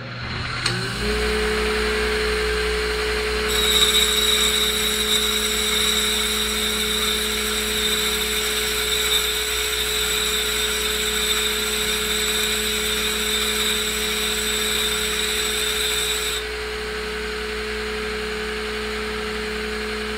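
A grinder motor spins up about a second in and runs steadily. From about 3.5 to 16 seconds a Makita cordless drill whines alongside it, spinning a thoriated tungsten electrode against the wheel to sharpen it for TIG welding.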